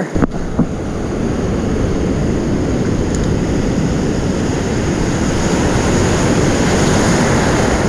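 Steady rush of ocean surf breaking and washing around the legs, with wind rumbling on the microphone. There are a couple of light clicks just after the start.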